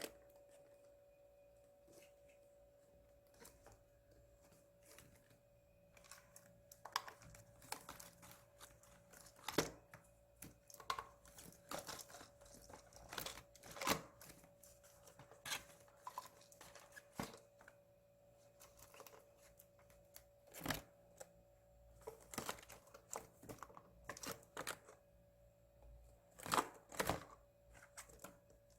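A pet chipmunk handling its snacks: irregular small clicks, taps and crinkly tearing rustles, getting busier after the first few seconds, over a faint steady hum.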